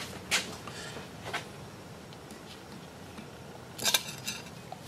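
Light metallic clicks of the parts of a Hydro Gear PW hydraulic pump being handled during disassembly: two single clicks, then a short clatter a little under four seconds in.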